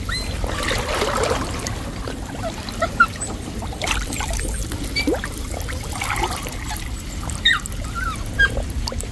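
Water sloshing and trickling around a person wading chest-deep through a canal, with scattered short plinks.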